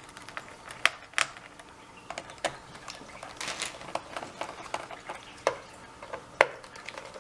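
Screwdriver loosening the captive screws of a laptop's plastic bottom cover: scattered sharp clicks and taps, with a brief stretch of scraping near the middle.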